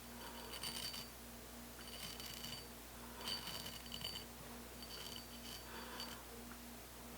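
Four slow scraping strokes on a steel hatchet head, about one every second and a half, each setting the steel ringing with a clear high tone, over a faint steady hum.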